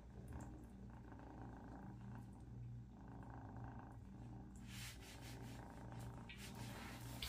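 Kitten purring, a faint low rumble that pulses on and off about twice a second with its breathing, while hands rub its wet face. From about four and a half seconds in, a faint scratchy rubbing noise joins it.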